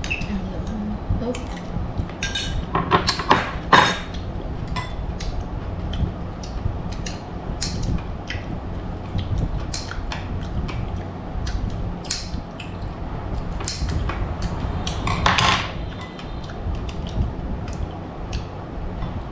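Metal spoons clinking against ceramic bowls at a meal table, scattered light clicks with a few louder clinks about three to four seconds in and again about fifteen seconds in, over a steady low hum.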